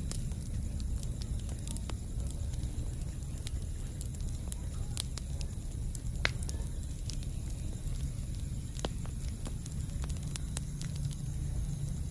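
Campfire burning: a steady low rumble of flames with scattered sharp crackles and pops of burning wood.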